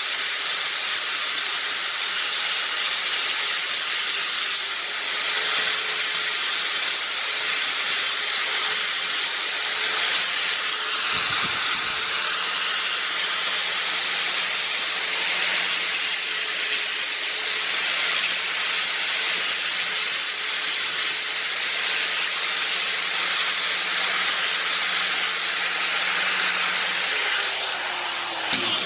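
Angle grinder grinding a steel tank flange, cleaning it to bare metal for welding, with a steady motor whine under the grinding. Near the end the whine drops in pitch and the sound stops abruptly.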